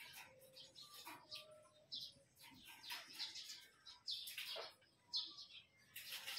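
Small birds chirping in short, repeated chirps, several of them falling steeply in pitch.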